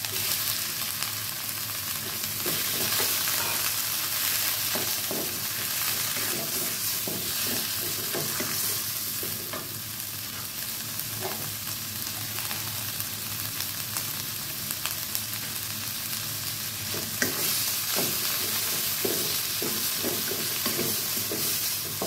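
Squid and shrimp frying in curry paste in a non-stick wok: a steady sizzle, with a wooden spatula scraping and knocking against the pan as they are stirred.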